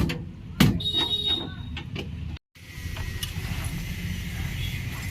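Two sharp metal knocks about two-thirds of a second apart, the second followed by a brief metallic ring, as tractor parts are worked on during dismantling. After a sudden break about halfway through, a steady low rumble.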